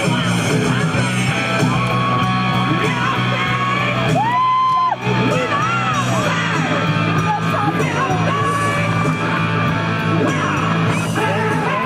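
Rock music with a steady bass line and a voice yelling and singing over it. A high note is held for about a second around four seconds in, followed by a brief drop in loudness.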